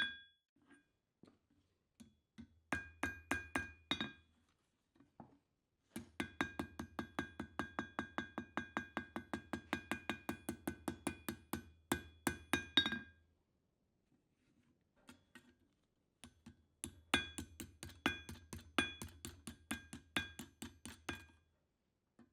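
Hand hammer striking steel on an anvil, the anvil ringing with each blow. The blows come in three runs: a short one a few seconds in, a long fast run of about four blows a second in the middle, and another run near the end.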